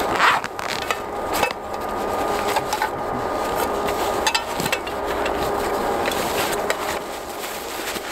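Gear being rummaged through in a backpack: steady rustling of fabric and packed items with scattered clicks and knocks. Near the end a folded cheap tarp is pulled out and shaken open.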